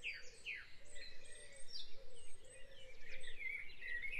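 Dawn chorus: many birds singing at once, with quick falling chirps and trills overlapping one another.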